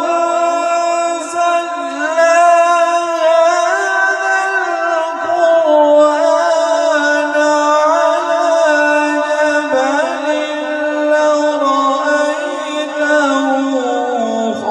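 A man reciting the Quran in melodic tajwid style, drawing out one long, ornamented phrase over the microphone and PA system, with the pitch stepping down twice toward the phrase's close.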